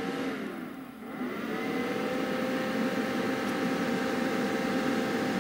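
Cooling fan of a Jackery Explorer 1000 portable power station whirring under a heavy load of about 780 W. Its pitch dips and then climbs during the first second and a half, then it holds a steady hum.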